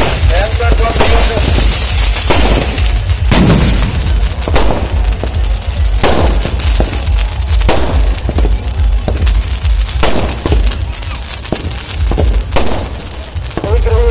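Fireworks going off: rockets and firecrackers bursting with sharp, irregular bangs and pops about once or twice a second, over a constant heavy low rumble.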